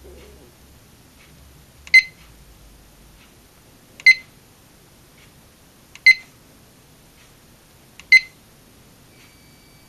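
Fire alarm horns giving four short, sharp chirps about two seconds apart, the walk-test signal of the alarm system. A faint steady beep sounds for about a second near the end.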